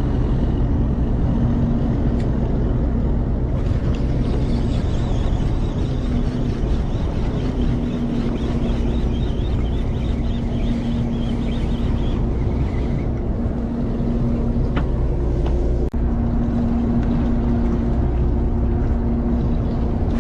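A fishing boat's engine running steadily with a low hum, under a constant wash of wind and water noise.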